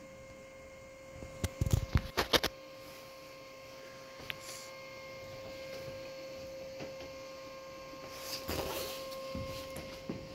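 Steady electrical hum with a fixed whine from the homemade drawer-rail CNC laser engraver. A handful of sharp clicks and knocks come about two seconds in, and a short rustle near the end.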